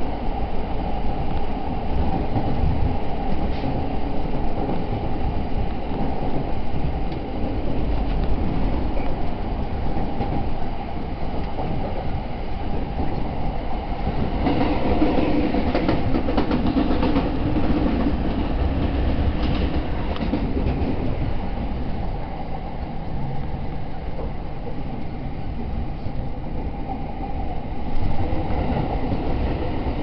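Train running on the rails, heard from inside the carriage: a steady rumble of wheels and running noise.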